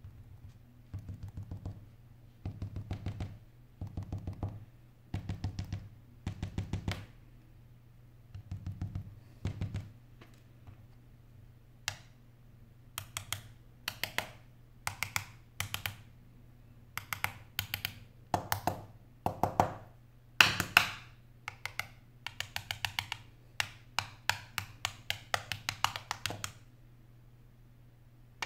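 Quick taps on an iPhone's body and glass, first with a thin wooden stick and then with a screwdriver, in short runs of several taps about once a second. From about twelve seconds in the taps are sharper and brighter.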